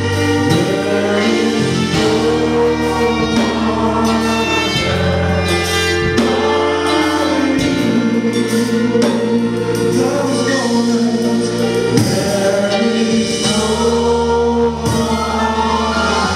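Gospel choir singing worship music in harmony, with keyboard accompaniment.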